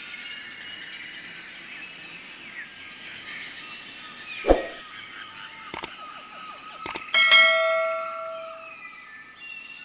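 A click followed by a bell ding, the sound of an on-screen subscribe-button animation; the ding is the loudest thing here and rings out for about a second and a half. Under it runs a faint background of chirping birds, with a few sharp clicks before the ding.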